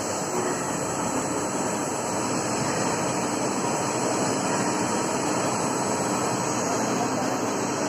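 Steady, even running noise of a CNC machine whose tool is cutting a notched pattern into a metal cylinder.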